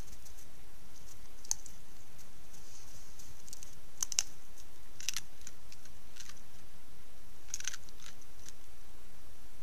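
Steady hiss from a trail camera's microphone, with five or six faint, short crunching clicks from a wolf feeding at a deer carcass.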